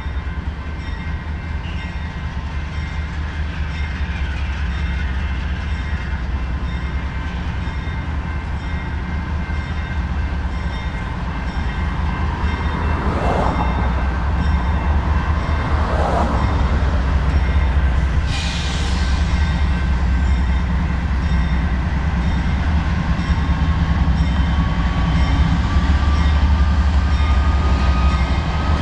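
Union Pacific GE AC6044CW and EMD SD70M diesel-electric locomotives working under power as the double-stack train pulls away from a stop, a steady low engine rumble that grows louder as they come closer. A brief hiss comes about two-thirds of the way through, and a faint rising whine near the end as the train gathers speed.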